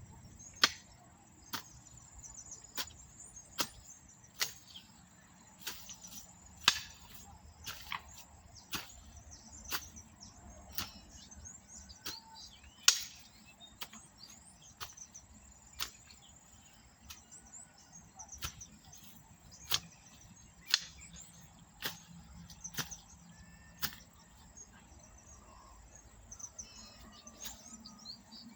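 A hand farm tool chopping in steady strokes, about one a second, some harder than others, with the hardest about halfway through.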